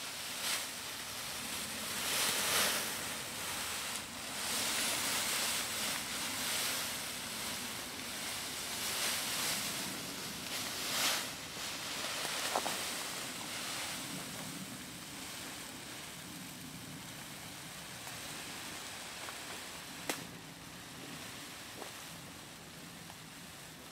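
Plastic sheeting rustling and crinkling in swells that rise and fall, with a few sharp clicks.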